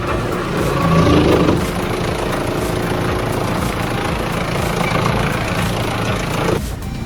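Large industrial wood chipper running steadily under its engine, swelling louder about a second in, then cutting off abruptly near the end.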